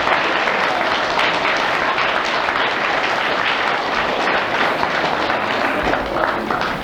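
An audience applauding steadily, a continuous dense clatter of many hands clapping, easing slightly near the end.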